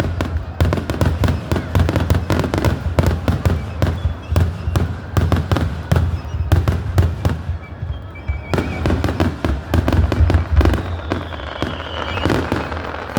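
Fireworks going off in a rapid barrage: many sharp bangs and crackles overlapping over a continuous low rumble of booms, with a short lull about eight seconds in.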